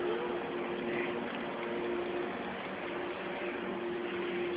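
Steady machine hum over an even hiss, with a faint constant low tone.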